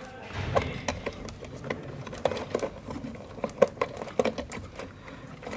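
Wiring harness being pressed into the plastic cable channels of a refrigerator control board's housing: irregular plastic clicks and taps with wire rustling, loudest in the first second.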